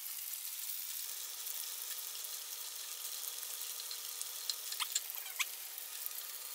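Chicken breast fillets frying in hot oil in a pan, a steady sizzle. A few light knife taps on a wooden chopping board come about four to five seconds in.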